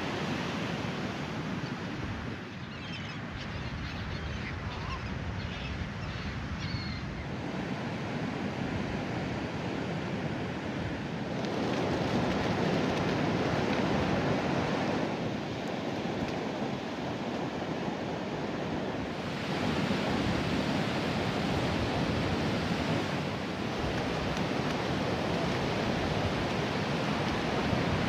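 Ocean surf washing on a beach: a steady roar of breaking waves that swells louder twice as bigger sets come in. A few faint high chirps sound a few seconds in.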